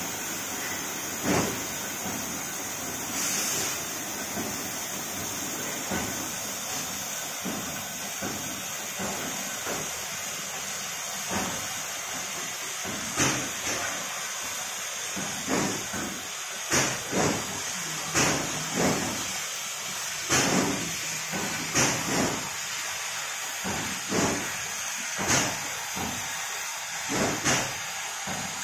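Oxy-fuel cutting torch of a CNC gas profile cutter hissing steadily, with sharp pops and cracks every second or so that come more often in the second half.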